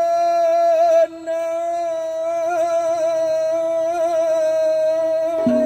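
A single long note held steadily at one pitch, rich in overtones, with a brief break about a second in and a slight waver later on.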